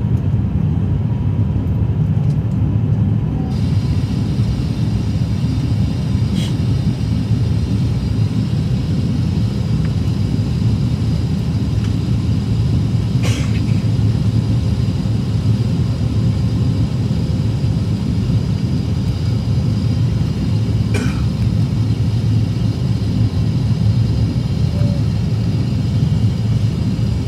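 Steady low rumble of cabin noise aboard an Airbus A350-900 in flight, heard at a window seat over the wing: the Rolls-Royce Trent XWB engines and the airflow past the fuselage. A higher hiss joins about three seconds in, and a few faint clicks sound now and then.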